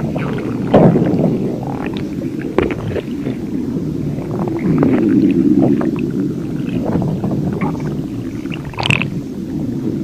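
Loud, drawn-out stomach growling, a low gurgling rumble that swells louder about halfway through.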